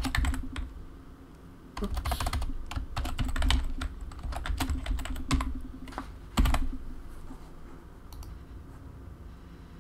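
Keystrokes on a computer keyboard as a password is typed: a few clicks at the start, then quick runs of key presses for about five seconds, ending with one louder key press about six and a half seconds in.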